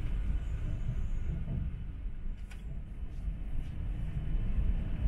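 Inside an E4 series MAX Shinkansen in motion: the steady low rumble of the train running along the track, easing slightly midway, with a couple of faint clicks.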